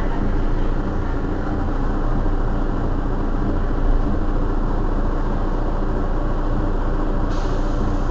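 Mercedes-Benz Citaro city bus engine idling steadily while the bus stands at a stop, heard from behind the bus. A short hiss comes about seven seconds in.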